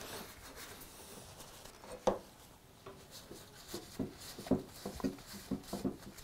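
A cloth wiping a cast-iron hand-plane frog clean by hand. There is a sharp knock about two seconds in, then a quick run of short, light knocks as the metal part is handled against the wooden workbench.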